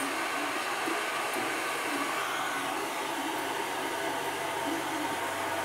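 Steady whirring hiss of constant noise, like a running appliance or burner, unchanging throughout.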